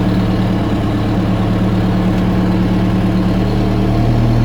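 Backhoe's engine running steadily in low gear, crawling under load; its note rises slightly near the end.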